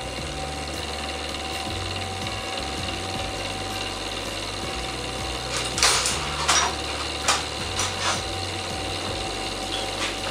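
Metal lathe with its carriage and toolpost traversing toward the chuck, giving a steady mechanical hum. From about halfway, several sharp metallic clicks and knocks follow at irregular intervals.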